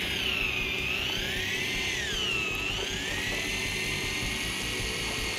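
Small electric fishing reel motor whining as it winds in a hooked ribbonfish. The whine sags in pitch twice as the fish pulls against it, then holds steady and higher.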